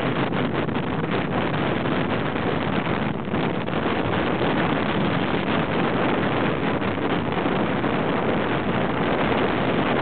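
Wind blowing across the microphone, a steady rush with no other sound standing out.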